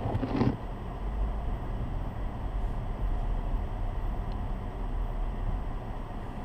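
A car driving, with a steady rush of tyre and road noise over a low engine rumble; a brief louder rush comes in the first half second.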